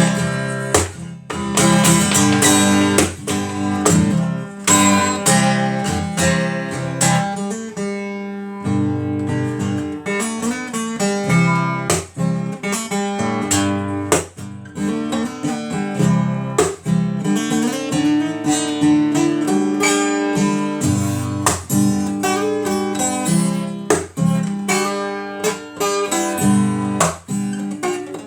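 Music: an acoustic guitar being strummed and plucked, with no singing.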